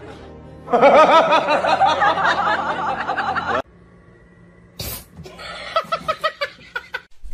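Loud, high-pitched laughter in rapid wavering pulses for about three seconds, cut off suddenly. Then a sharp click and softer pulsed laughter near the end.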